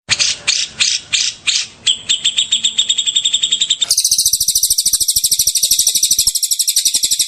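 Songbird calls in rapid 'tembakan' (shot) style: first about six separate down-sweeping chirps, then a fast, evenly repeated trill. Near the middle it cuts abruptly to a faster, higher, sharper trill that runs on.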